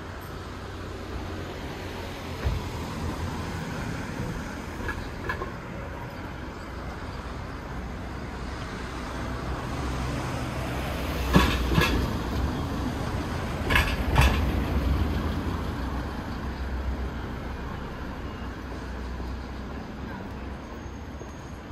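A vehicle rumbling past at low speed. Its wheels clunk over a bump or joint in two pairs, about half a second apart within each pair and a couple of seconds between the pairs, near the middle.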